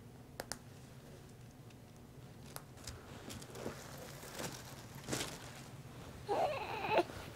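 Soft rustling and handling noises of a baby's clothes being put back on, with a few light clicks, then a brief infant vocalisation about six seconds in.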